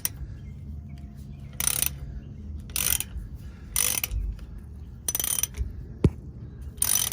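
Ratchet wrench on an H14 hex socket clicking in about five short bursts, one for each back-stroke of the handle, as it unscrews a differential drain plug; a single sharp click about six seconds in.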